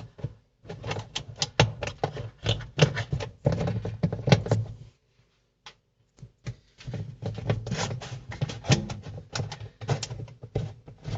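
Rapid clicking, knocking and rubbing of hands working the plastic parts of a semi-automatic washing machine while it is taken apart, in two runs with a break of about a second and a half in the middle.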